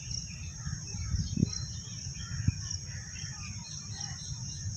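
Outdoor garden ambience: birds chirping here and there over a steady high insect drone, with wind rumbling on the microphone and a couple of low knocks.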